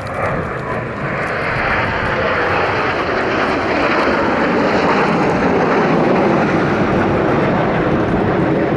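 Jet noise from a formation of Kawasaki T-4 jet trainers flying past, each powered by twin turbofans. The roar builds over the first couple of seconds and then holds loud and steady.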